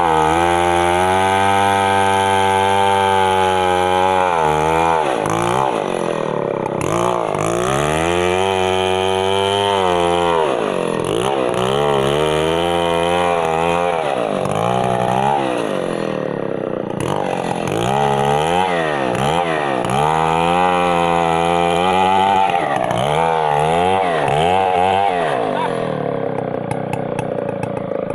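Stihl 070 two-stroke chainsaw running hard, its engine pitch repeatedly dipping and climbing back every few seconds, as in revving and loading in a cut.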